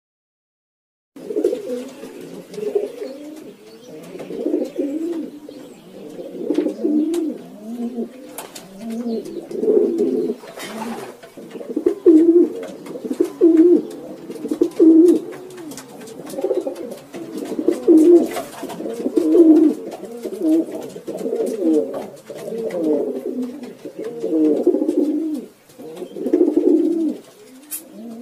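Pigeons cooing continuously, starting about a second in, a dense run of low coos swelling and fading every second or two, with scattered faint clicks over it.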